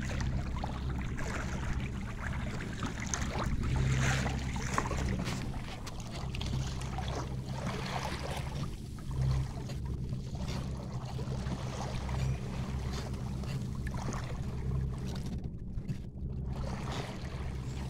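Water splashing and rushing along the hull of a sailing canoe under way through choppy waves, with louder splashes about four and eight seconds in, over a steady low rumble.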